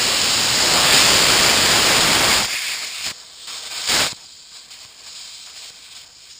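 Air hissing loudly out of a tire's open valve stem with the valve core removed, airing the tire down for off-roading. The hiss cuts off about two and a half seconds in, and there is one brief burst of hiss near four seconds.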